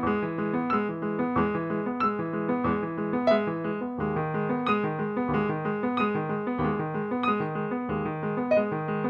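Piano played without the sustain pedal: a steady pattern of notes and chords, about three a second, each one cut off when the key is released, so the music sounds detached rather than smooth.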